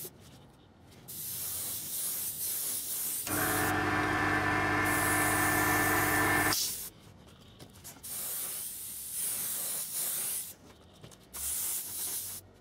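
Airbrush spraying weathering paint in several short bursts of hiss with pauses between them. For about three seconds in the middle a louder steady hum starts and stops abruptly.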